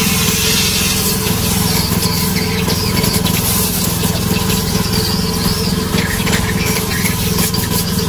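Pressure washer running steadily, its pump's pulsing hum under the hiss of the high-pressure water jet.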